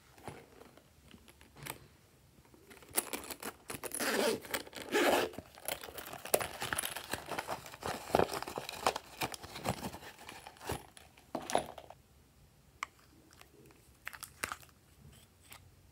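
Glossy slime being squished and stretched by hand: a run of sticky crackles and small pops, thickest from about three seconds in until about twelve, with scattered single clicks either side.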